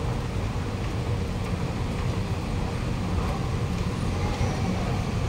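Kawasaki-CRRC Sifang C151A metro train pulling into a platform and slowing to a stop, a steady low rumble of running gear and traction equipment with faint whining tones.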